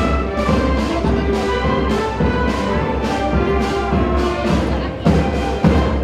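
Brass band music: held brass chords over a low bass, with a steady drum beat of about two strokes a second.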